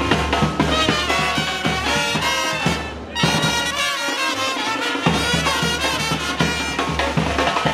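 Murga brass band playing a lively Latin dance tune, with trumpets and trombones over drums. The music breaks off briefly about three seconds in, and the low drums and bass drop out for about a second after it.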